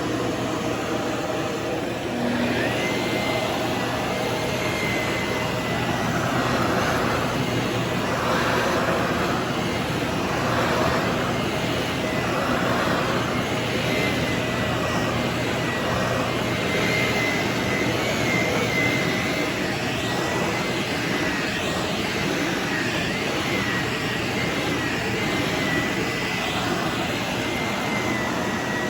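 Shark ZU632 Powered Lift-Away vacuum cleaner running steadily, its motor giving a thin high whine over a steady rush of air. For a while the rush swells and fades about every two seconds as the cleaner is pushed back and forth.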